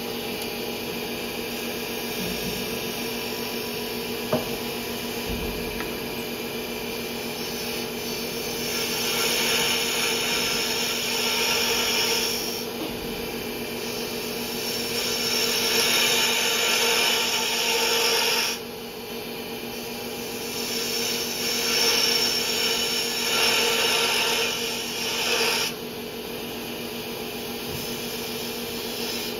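Wood lathe running with a steady hum while a spindle gouge cuts a taper into the spinning wooden mallet handle. The cutting comes as three stretches of hissing shaving noise, each a few seconds long, the last breaking off sharply a few seconds before the end.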